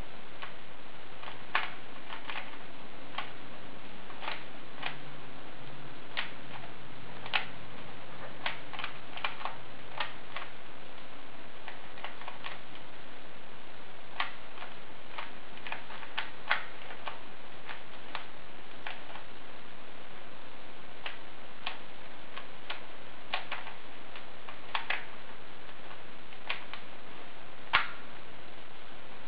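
Rubik's Cube being turned fast during a solve: sharp plastic clicks of its layers snapping round, irregular, sometimes several in quick succession and sometimes with pauses of a second or two between them.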